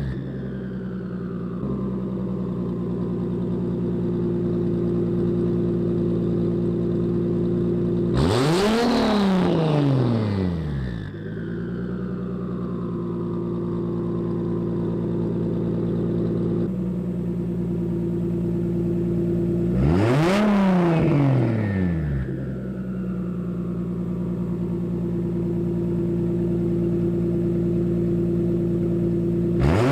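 Toyota Supra 2JZ inline-six with a single Precision 6766 turbo, through a 4-inch Tomei Expreme Ti titanium exhaust, idling steadily and blipped three times, about twelve seconds apart. Each rev rises quickly and drops straight back to idle, with a whine falling away afterwards.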